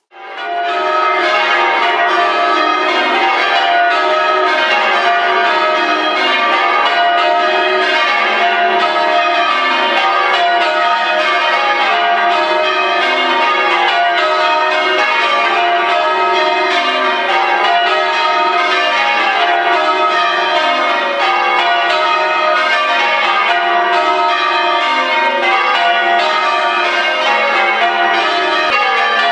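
Church tower bells rung in full-circle change ringing: a rapid, even stream of bell strokes, several bells of different pitch following one another in rounds or changes, starting abruptly.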